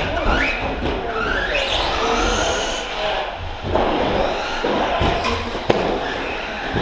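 Electric 1/10 short-course RC trucks driving past, their brushless motors whining up and down in pitch as they accelerate and brake, with tyre noise on the carpet. Two sharp knocks come in the second half.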